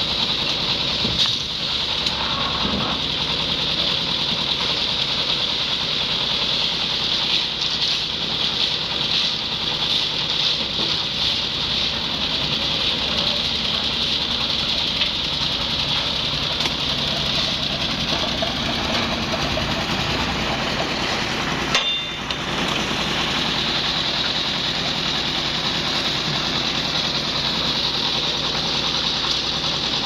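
Engine-driven drum concrete mixer running steadily, its engine chugging evenly as the drum turns. A single sharp knock sounds a little past two-thirds of the way through.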